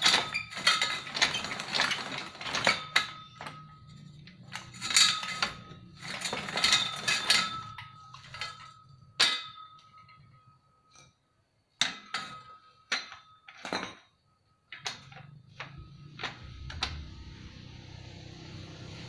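Hand-cranked homemade sheet-metal rolling machine bending a 3 mm flat steel bar into a ring: repeated metallic clanks and clinks with a ringing tone from the steel. The clanks come thick and fast for about ten seconds, then thin out to a few single knocks.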